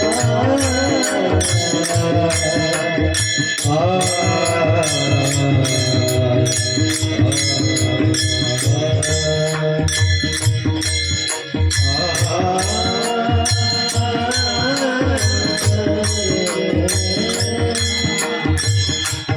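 Marathi devotional chant sung by a male voice to mridang drumming, over a steady rhythmic jingling beat; the voice comes in and out in sung phrases.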